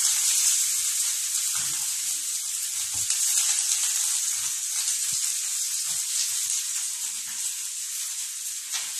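Water at a rolling boil in a large wok, a steady hiss, as suantangzi noodle dough is squeezed into it.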